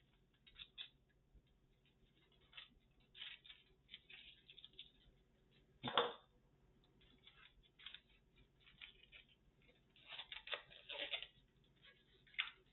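Faint handling noises of a graphics card and computer parts being fitted: scattered light clicks and rustles, with one sharper click about six seconds in and a busier patch of rattling near the end.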